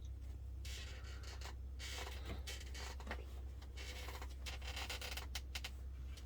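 Irregular scraping and rubbing strokes of an applicator spreading a wood sealer across the wooden floor, over a steady low hum.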